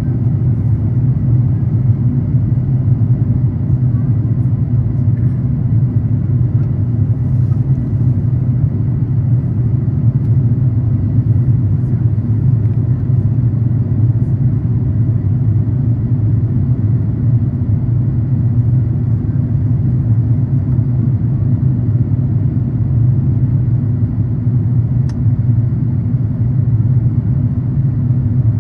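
Steady low rumble of an Airbus A350-900's Rolls-Royce Trent XWB engines and rushing air, heard inside the passenger cabin, unchanging throughout.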